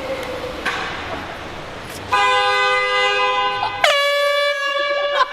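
Two long blasts of a handheld air horn, back to back, starting about two seconds in. The second begins with a quick drop in pitch, then holds steady.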